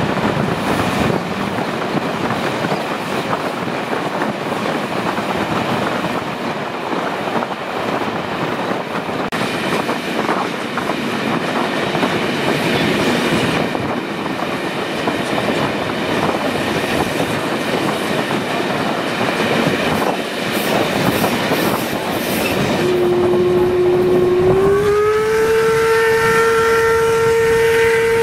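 Train running at speed, heard from an open coach window: a steady rush of wind and running noise with rail clatter. Near the end the steam locomotive 01 202 sounds its whistle, a long note that steps up slightly in pitch after about a second and keeps sounding.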